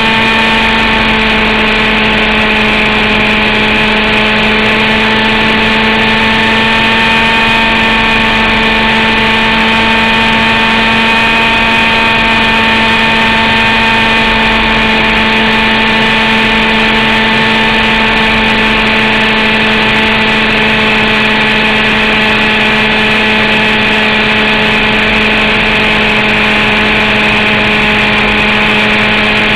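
Zenoah G29RC two-stroke gas engine of a radio-controlled helicopter running steadily, heard up close from a camera mounted on board. It makes a constant buzzing drone that holds an almost unchanging pitch.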